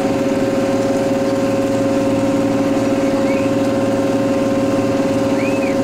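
Fishing boat's engine and deck machinery running steadily: a constant hum of several steady tones, with two faint short squeaks in the second half.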